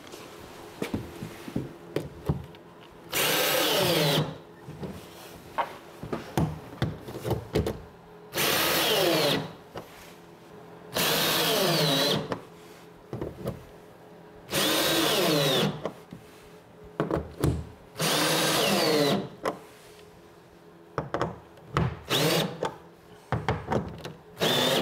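Ryobi cordless drill driving bolts through a plastic sled's runner channels, in five bursts of about a second each and two shorter ones near the end. The motor's pitch sweeps as each bolt runs down, with small clicks and knocks of handling between bursts.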